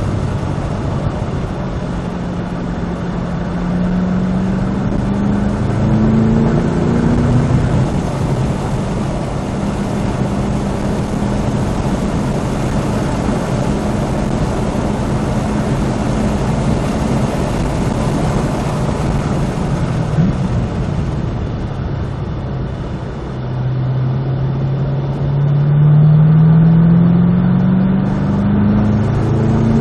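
Cadillac CT5-V Blackwing's supercharged 6.2-litre V8 driven hard on track, climbing in pitch under acceleration twice with steadier stretches between, over constant road and wind noise.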